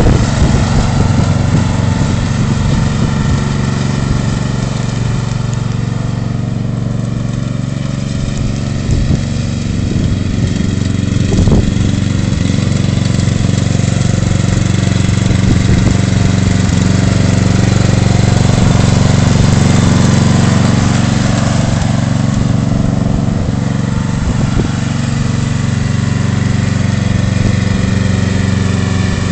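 Remote-controlled ride-on lawn mower's engine running steadily as the tractor mows across a grass slope. The level swells and sags slowly as it moves about.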